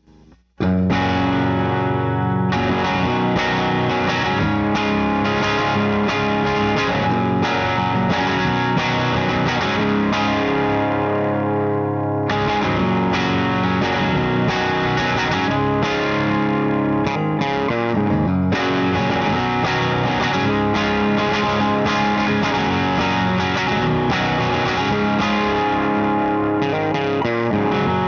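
Electric guitar (a Wellers Rat Rod with an Arcane Inc. Ultratron pickup) played through a Satellite Neutron amp into a Mojotone isolation cab with Jensen Nighthawk 75 and Raptor 100 speakers, close-miked with Shure SM57s. Chords and riffs begin about half a second in and run on, with a short break about twelve seconds in.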